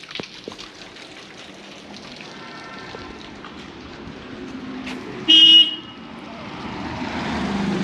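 A vehicle horn gives one short, loud toot about five seconds in, after a fainter horn a little earlier. Then a car's engine and tyre noise grows as it approaches.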